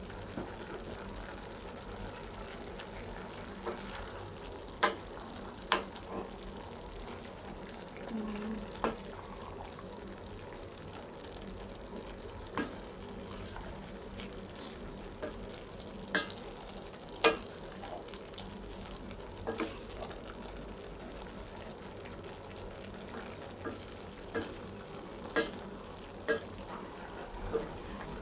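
Cabbage, carrots and chicken stir-frying in a stainless steel pot: a steady sizzle, with a wooden spatula scraping and knocking against the pot a dozen or so times at irregular intervals.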